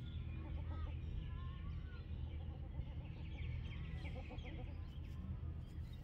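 Birds chirping and calling with many short gliding whistles and chirps, over a steady low background rumble.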